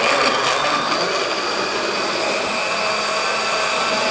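Countertop electric blender running steadily with a motor whine, puréeing mango chunks with milk and sweetened condensed creamer into a smooth mango-milk juice.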